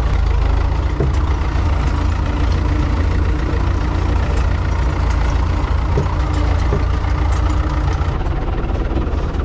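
Farm tractor engine running steadily under load, a deep even rumble with a faint steady hum above it.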